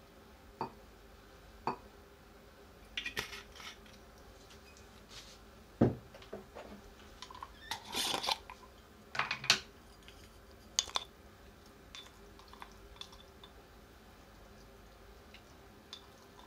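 Scattered clinks and knocks of tableware and a glass bottle being handled and set down on a table, the loudest a sharp thud about six seconds in and a short clatter around eight seconds.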